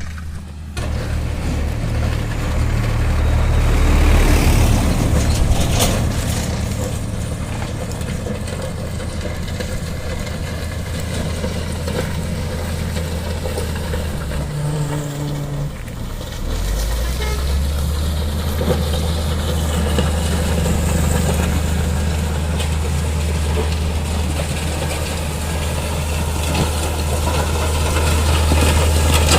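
Motor grader's diesel engine running steadily with a low hum; the engine note dips and changes briefly about 15 seconds in, then settles into a steady hum again.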